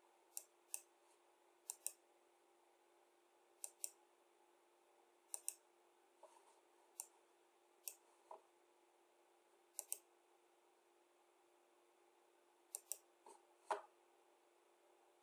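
Sharp clicks, mostly in quick pairs, every second or two, over a faint steady hum; the last click, near the end, is the loudest.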